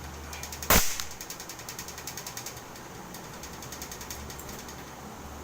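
A single sharp shot from an air gun about a second in, over a rapid faint ticking.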